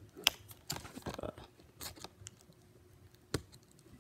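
Fingernails picking and scratching at the plastic shrink-wrap on a Blu-ray case, trying to get it open: a few sharp clicks and crinkles, the loudest a little after three seconds in.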